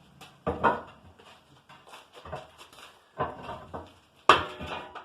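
Heavy hammer blows on an old furnace's metal body as it is knocked apart, about five strikes roughly a second apart, the loudest near the end with a brief metallic ring.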